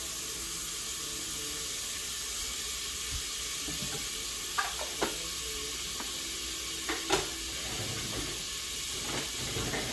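Butter sizzling steadily as it melts in a hot stainless steel stockpot, with a few light pops in the middle.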